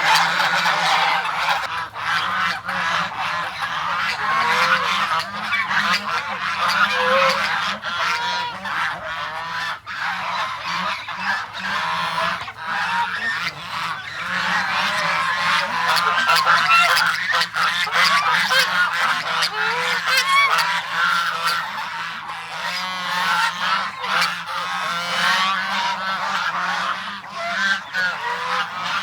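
A flock of domestic geese honking, many calls overlapping without a break, with a low steady hum underneath.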